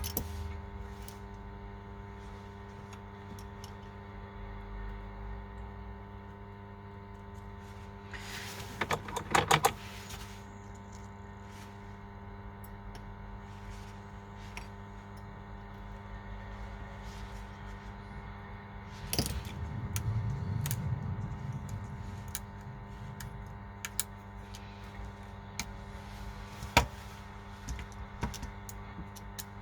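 Small hard clicks and clatter of tools and phone parts being handled during an iPhone screen replacement, with a dense burst of clicks about nine seconds in and a rustle about twenty seconds in, over a steady electrical hum.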